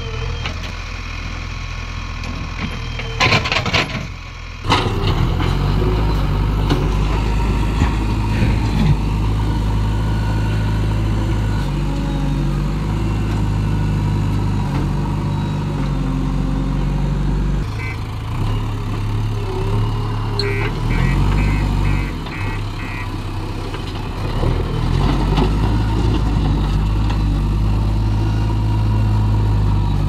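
JCB 3DX backhoe loader's diesel engine running while working, its note rising and falling with the load. A loud clatter comes a few seconds in, and a short run of about six high beeps comes around two-thirds of the way through.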